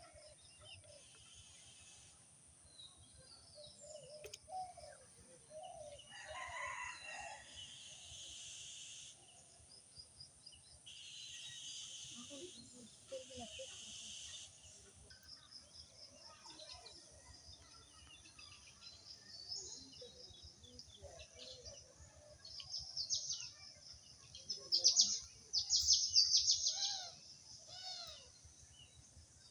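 Countryside birdsong: a rooster crows once about six seconds in. Small birds chirp throughout, loudest near the end, over a steady high insect buzz that comes and goes.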